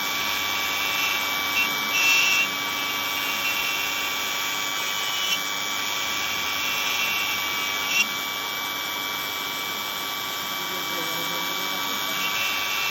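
Hobby CNC router's spindle running steadily with a high whine while carving, with a few brief clicks along the way.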